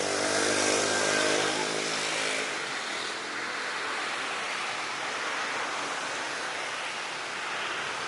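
An engine's droning tone, falling slightly in pitch and fading over the first couple of seconds, over a steady rushing roar.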